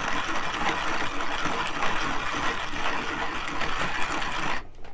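Pietro hand coffee grinder, set coarse, crushing a dose of coffee beans as its crank is turned: a steady gritty grinding with a fast crackle, breaking off briefly near the end.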